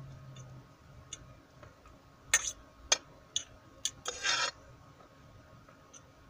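A utensil knocking and scraping against a cooking pot as pasta is scraped out into a plastic bowl: four or five sharp clicks, then a short scrape about four seconds in. A low steady hum stops about half a second in.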